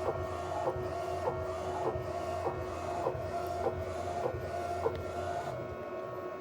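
Procolored DTF printer running a print job. A steady motor whine and hum sound throughout, with a short click a little under twice a second as the print-head carriage travels along its rail. The whine drops away near the end.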